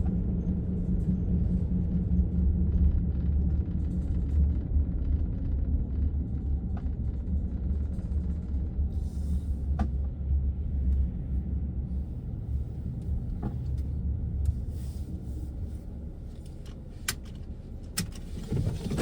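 Car road and engine rumble heard from inside the cabin while driving, a steady low drone that eases off over the last few seconds as the car slows to a stop.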